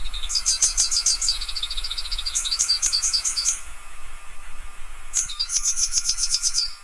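Small bird singing: bursts of rapid high chirping notes, each run lasting a second or two with short gaps between, some runs falling slightly in pitch, over a faint steady hum.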